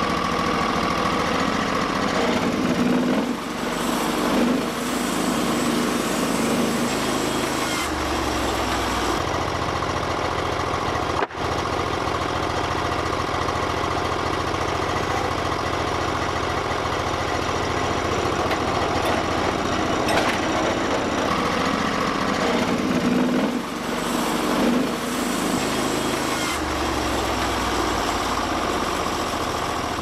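Portable band sawmill's engine running steadily, with the band blade sawing through a cant at first; the engine's load shifts a few times.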